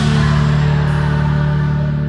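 Live band music holding a sustained low chord, its upper ring slowly fading away.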